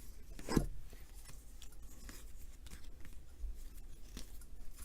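2019 Topps baseball cards being handled and flipped through: soft rubbing of card stock sliding over card stock with light ticks, and one sharper tap about half a second in.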